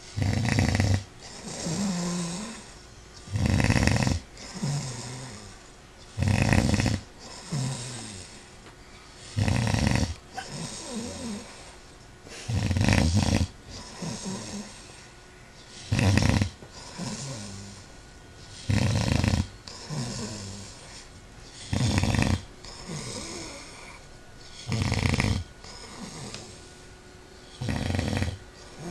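Loud snoring, one snore about every three seconds, ten in all. Each loud snore is followed by a quieter breath out with a short tone that falls in pitch.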